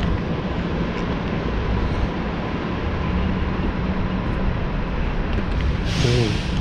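Steady low rumble of an idling bus and curbside traffic, with a brief hiss about six seconds in.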